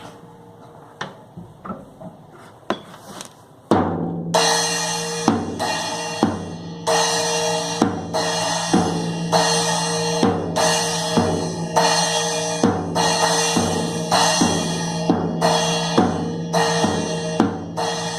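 Drum kit played by an amateur making up a beat: a few light hits at first, then about four seconds in a loud, steady beat of bass drum, snare and cymbals. The strokes fall a little under a second apart, and the cymbals ring on between them.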